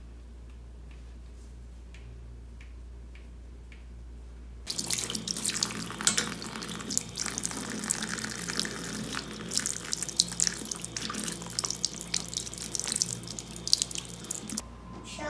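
Low steady room hum, then about five seconds in a tap starts running into a bathroom sink, water splashing off a shoe sole held under the stream, with small sharp clicks and scrapes as a stick picks the sole clean.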